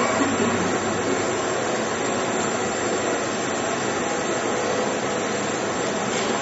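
VERKON PAB-350 vertical two-spindle machine running, a steady, even mechanical noise.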